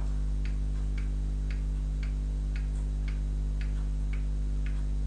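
Even, regular ticking, about two ticks a second, over a steady low hum.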